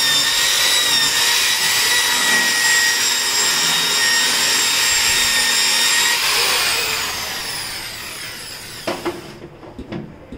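Corded electric drill with a round scrubbing pad attachment running steadily against a ceramic washbasin. About six seconds in it is switched off and its whine falls as it spins down. A couple of knocks follow near the end.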